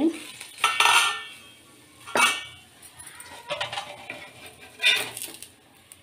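Metal cookware clinking and knocking about four times, a second or so apart, while food cooks on a tawa.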